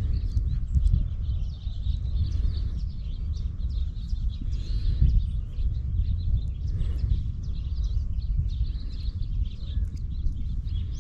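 Steady, uneven low rumble of wind on the microphone, with birds chirping over it.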